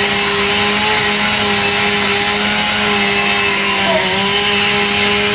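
Gas-powered saw running at high speed, a steady high-pitched motor drone that sags briefly about four seconds in as it bites into the material.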